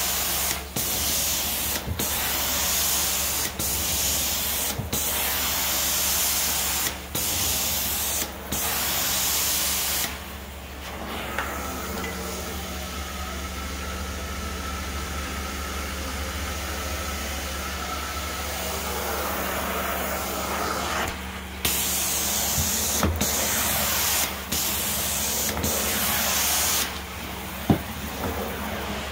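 Carpet extraction wand spraying hot water onto carpet and vacuuming it back up in repeated strokes, the hiss dipping briefly between strokes. For about ten seconds in the middle the spray stops and only the steady suction hum runs, with a faint whistle. Then the spraying strokes resume.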